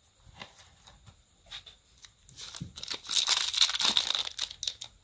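A few light clicks and taps, then a crinkling rustle lasting about two and a half seconds.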